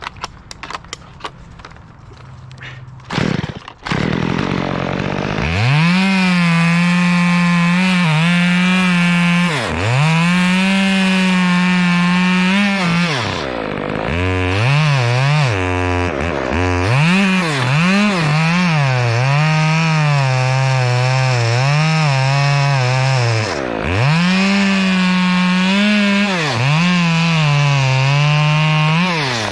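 A few knocks, then a gas chainsaw running at full throttle from about five seconds in. Its pitch sags and recovers again and again as the chain is loaded in the wood, and it drops lower for a few seconds midway where it bogs in the cut.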